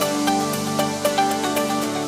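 Background electronic music with sustained notes and a regular beat.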